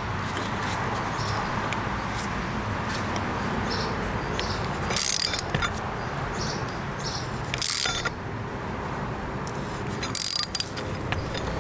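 D.I.D. KM500R chain tool being wound in by hand to press a rivet master link's side plate onto the chain pins, with short bursts of clicks about five, eight and ten seconds in.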